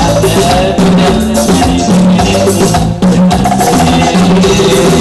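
Music with drums and percussion keeping a steady beat under a sustained melody line.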